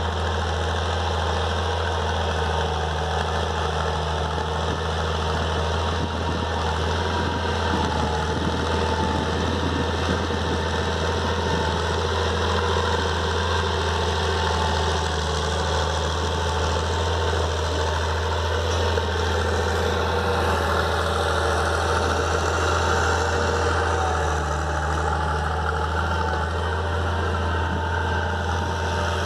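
Massey Ferguson 296 tractor's diesel engine running steadily with a deep, throaty rumble.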